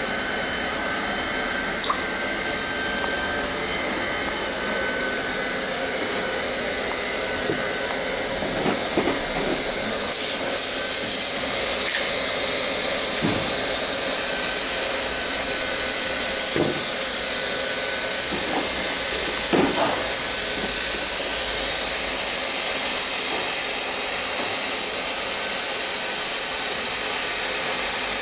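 Plastic welding machine running, its hot-air blower giving a loud, steady hiss, with a few light knocks now and then.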